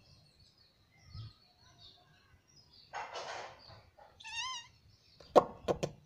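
Rose-ringed parakeet vocalising softly: a short breathy hiss about three seconds in, a brief pitched call a second later, then a quick run of sharp clicks near the end.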